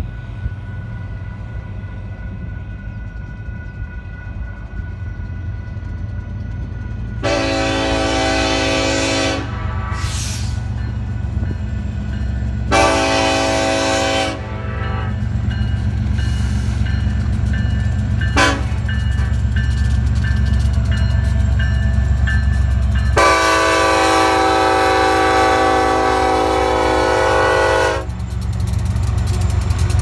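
A train's air horn sounds four times over the steady low rumble of the train: long, long, a brief short toot, then a long final blast, the standard grade-crossing signal.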